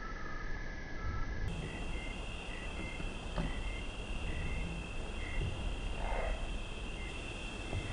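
Night insects calling: steady high-pitched trills with short chirps repeating in between, over a steady low rumble.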